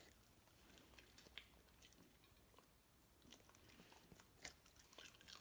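Dachshund chewing a treat taken from a hand, faint small crunches and clicks of her teeth, the loudest about four and a half seconds in.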